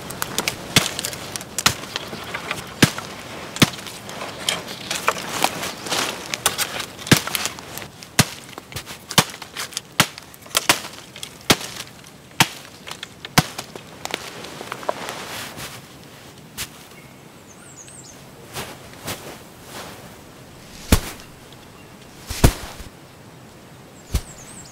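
Hatchet chopping the branches off a felled young pine, with sharp strikes about once a second that thin out after about fifteen seconds into a few scattered knocks.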